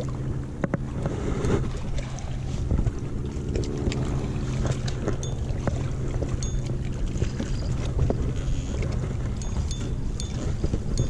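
Steady low drone of a motorboat engine running out on the lake, with scattered clicks and taps close by.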